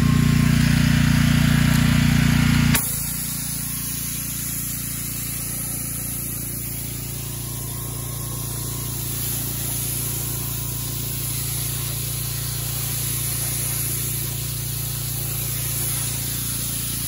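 Gas-engine Craftsman pressure washer running while a wheeled undercarriage cleaner sprays water under a car: a steady engine hum with a high hiss of spray. The sound is loud and mostly engine hum at first, then drops sharply about three seconds in to a quieter hum under the steady spray hiss.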